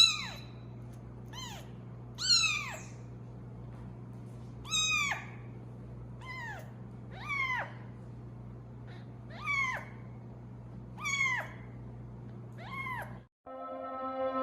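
A kitten meowing repeatedly: about ten short, high meows, each rising then falling in pitch, every second or two, over a steady low hum. Near the end the meows stop and music begins.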